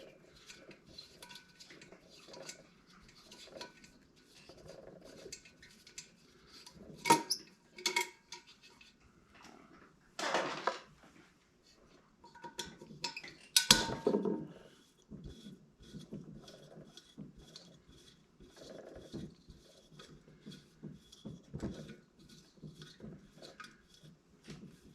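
Metal parts and hand tools clinking and clanking as a diesel heater is taken apart to reach its combustion chamber, with scattered small clicks and a few louder metallic knocks, the loudest about fourteen seconds in.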